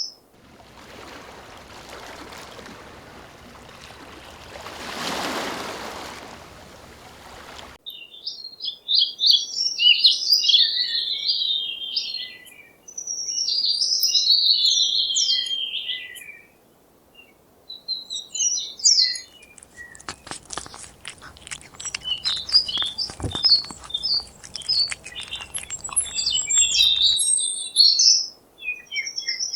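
Small birds chirping and twittering in quick high bursts. The first several seconds hold only a rushing hiss that swells and fades before the chirping starts, and later a crackling hiss runs under the birds for a while.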